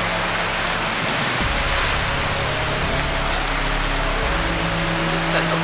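Heavy rain pouring onto a paved street and pavement: a dense, steady hiss.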